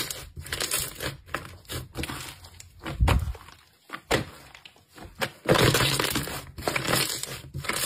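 Hands squeezing and stretching a white slime studded with green beads: squishing with many small clicks and pops as air pockets in the slime burst. It goes quieter for about a second and a half in the middle, then the squeezing picks up again.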